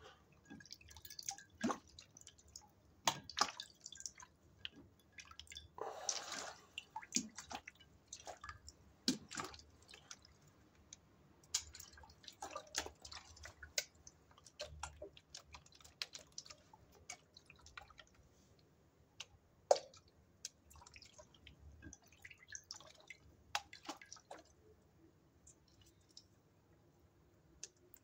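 Water dripping and splashing in scattered small drops around a shallow glass dish of bath water, with light taps and clicks in between and one longer noisy splash about six seconds in.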